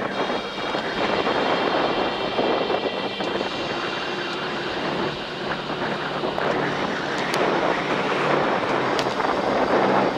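Gusty wind rushing over the microphone, with a steady engine drone underneath whose pitch drops about halfway through.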